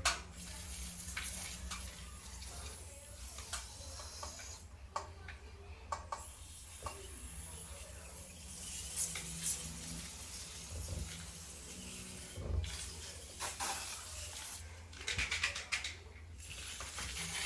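Aerosol can of WD-40 air conditioner coil cleaner spraying onto the coil in intermittent hissing bursts, with a few sharp clicks between them.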